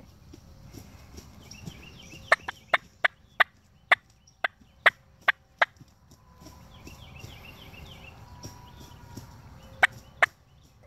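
Wild turkeys calling at close range: a quick run of about eight short, sharp notes over three seconds, two more near the end, and fainter rattling calls in between.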